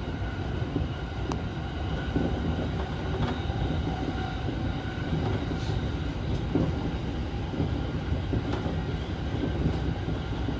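Electric commuter train running, heard from inside the car: a steady rumble of wheels on track with a faint steady whine above it and a few light clicks.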